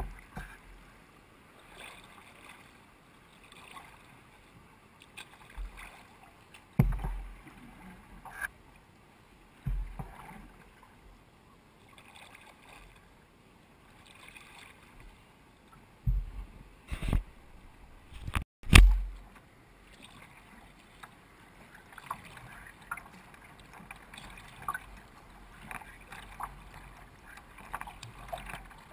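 Water splashing and lapping along a sea kayak's hull as it is paddled, with recurring stroke splashes. Several low thumps break in, the loudest a little past the middle right after a brief dropout in the sound.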